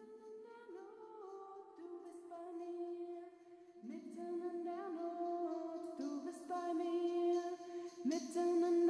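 Slow, wordless music of long held sung notes, a voice-like chord with slight bends in pitch. It starts soft and swells, with new notes entering about four seconds in and again near the end.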